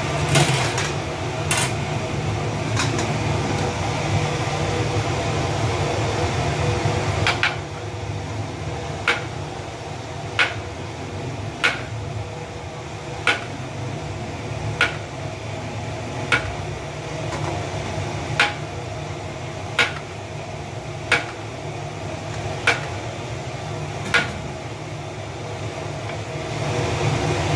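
Steady low machine hum with sharp knocks repeating evenly about every second and a half through most of the stretch; the background is louder for the first seven seconds.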